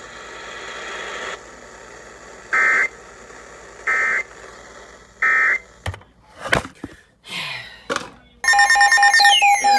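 Emergency Alert System end-of-message data bursts: three short, buzzy, chirping bursts about 1.3 s apart, marking the end of the weather radio warning. A few clicks follow. Near the end a loud, steady electronic alert tone begins, with falling sweeps over it.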